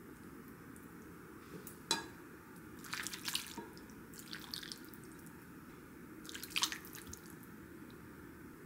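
Soup broth being ladled into a ceramic bowl: a few short bouts of pouring, splashing and dripping, the loudest near the end. A sharp clink about two seconds in.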